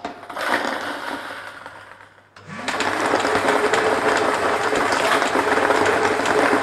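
Lottery ball machine starting a draw: the balls rattle down into the chamber, fading, then about two and a half seconds in the machine's motor starts with a short rising whine. It then runs steadily while the balls tumble and clatter inside the chamber.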